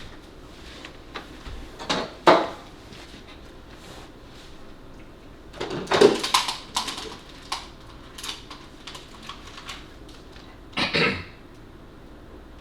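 Scattered knocks and clatters of objects being handled in a small room, with the loudest bunches about two seconds in, around the middle and near the end.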